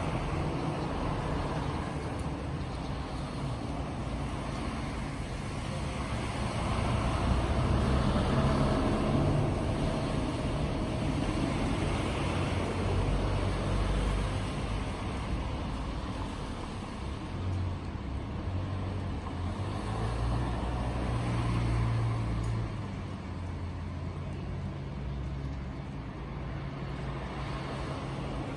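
Road traffic noise: a steady low rumble of vehicles that swells louder a few times.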